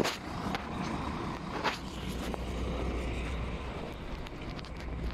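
Diesel city bus engines running close by: a steady low drone, with two sharp knocks, one at the start and one about a second and a half in.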